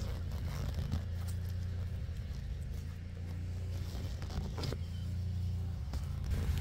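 An engine running steadily at a constant speed, with a few short clicks and knocks over it.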